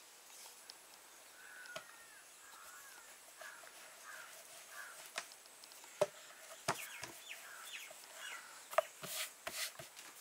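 Faint bird calls, a run of short chirping calls in the first half. In the second half come a scatter of sharp knocks and taps as roti dough is folded and rolled out with a rolling pin on a board.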